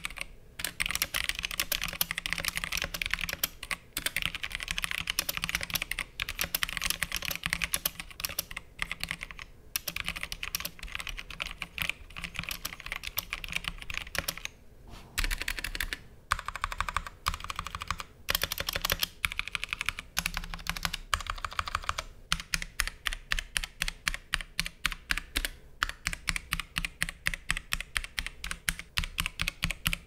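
Stock Drop CTRL mechanical keyboard with Kailh Speed Silver linear switches being typed on: a fast run of key clacks broken by a few short pauses, then, in the last third, separate keystrokes at about three to four a second.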